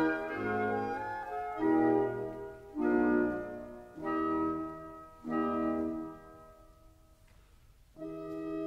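Background instrumental music: a slow run of held notes or chords, one starting about every second and fading. It dies down to near quiet about six and a half seconds in, and a new chord enters near the end.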